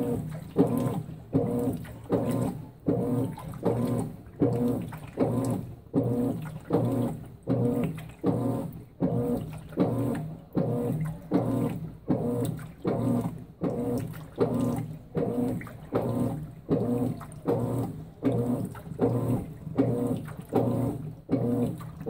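Consul 16 kg top-load washing machine agitating a water-soaked duvet on its duvet cycle: the agitator swishes back and forth about three strokes every two seconds, each stroke with a motor hum and water sloshing in the tub.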